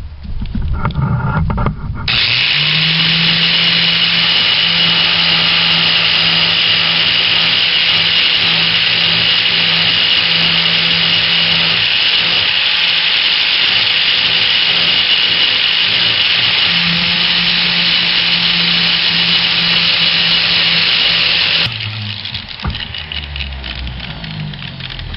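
Electric grinder spinning up, then grinding the cutting edge of a steel mulching lawn mower blade with a steady high-pitched grinding noise over the motor's hum. About 22 seconds in the grinding stops abruptly and the grinder winds down.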